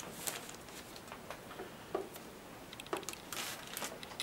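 Comic books being handled and drawn out of a cardboard box: scattered light taps and rustling, with a slightly longer rustle about three and a half seconds in.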